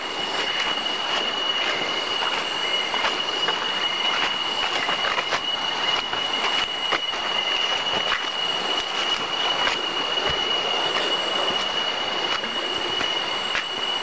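Steady, high-pitched drone of cicadas in rainforest, one unbroken tone, with scattered footsteps crunching on dry leaf litter.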